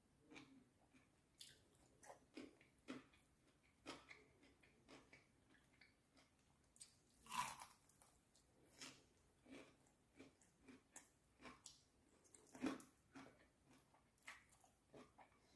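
Quiet, close-miked chewing and biting of fried chicken and a pickle: many small crackly chews, with two louder crunchy bites, one about halfway through and another later on.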